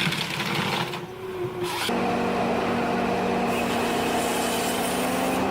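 Forestry harvester's engine running. The first two seconds are uneven machine noise; about two seconds in, the sound changes abruptly to a steady hum.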